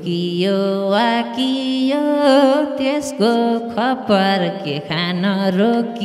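A man singing a Nepali lok dohori line into a microphone: drawn-out, ornamented notes that slide from pitch to pitch, with short breaks between phrases.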